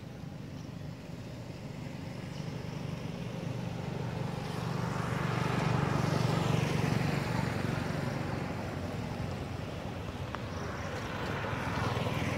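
Passing road traffic: a vehicle's noise swells to a peak about halfway through and fades, then another vehicle approaches near the end, over a steady low hum.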